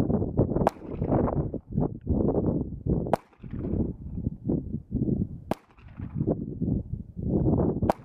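Wind buffeting the microphone, crossed by four sharp cracks of a Sig Sauer P220 firing .45 ACP rounds, evenly spaced about two and a half seconds apart.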